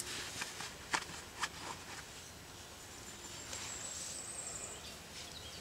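Quiet woodland ambience. A few short rustles and snaps in the first two seconds, then a thin, very high whistle from a small bird, held for about a second and a half and rising slightly.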